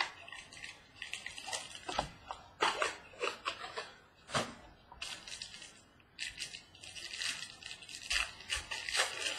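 Plastic wrapper crinkling and crackling in bursts as a trading-card mini box is unwrapped and handled, with scattered light taps and rustles.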